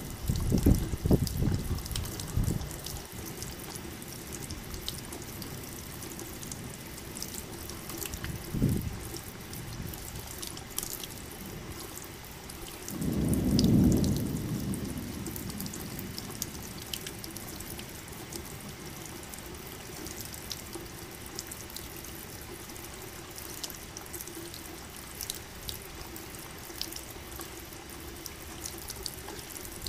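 Steady rain with scattered drops ticking, under low thunder rumbles: a few in the first seconds, a short one about nine seconds in, and the loudest, a longer rumble swelling and fading about halfway through.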